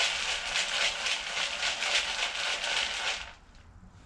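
Corn Pops cereal rattling in a bowl as it is shaken to spread sprayed-on flavouring, a fast, even rattle that stops about three seconds in.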